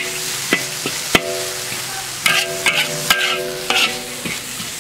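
Metal spatula scraping and knocking in an iron wok, stir-frying chopped chilies, garlic and ginger with no oil, over a steady sizzle. The strikes come irregularly, and some leave the wok ringing briefly.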